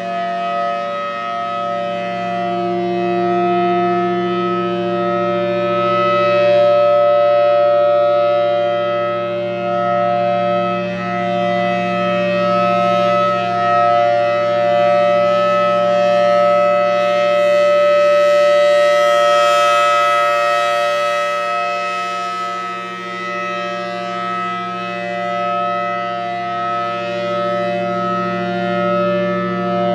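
Federal Signal Thunderbolt 1000T outdoor warning siren sounding its steady Alert signal: a loud, unchanging two-note tone whose loudness rises and falls slowly as the rotating siren head sweeps past.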